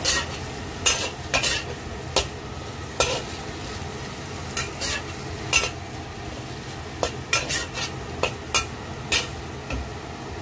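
Shrimp sizzling in hot oil in a wok while they are stir-fried through, a metal wok spatula scraping and clacking against the pan at irregular moments over the steady sizzle.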